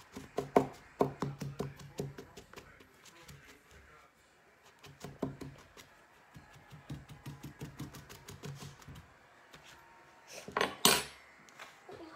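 A metal fork tapping and scraping against a plate through kinetic sand in quick runs of clicks. Near the end there is a single louder knock.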